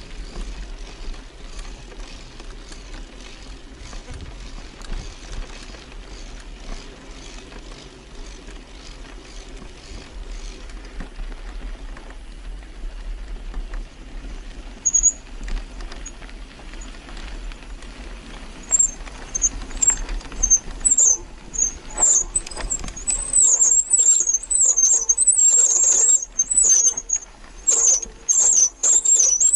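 Bicycle brakes squealing in high, wavering bursts from about two-thirds of the way in, over loud rattling knocks from the bike on rough ground. Before that there is a steady low rumble of riding.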